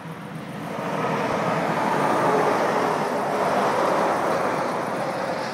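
A road vehicle driving past, a rush of traffic noise that swells about a second in and fades near the end.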